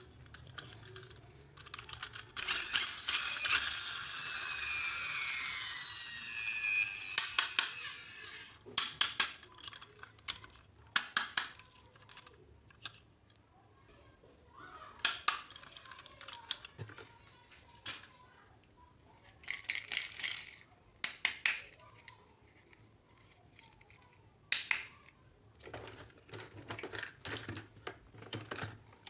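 Packaging rustling and crinkling for about six seconds, then scattered light clicks and taps as small plastic toy parts are handled.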